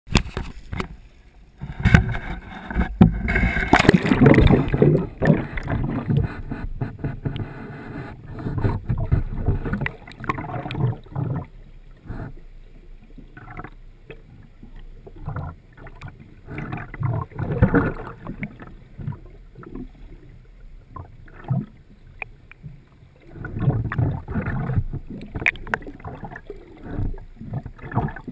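Sea water sloshing and surging around a camera held just under the surface, in uneven washes; the loudest, densest stretch of splashing comes a few seconds in.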